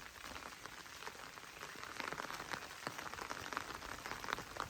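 Rain falling steadily, with individual drops ticking at irregular intervals.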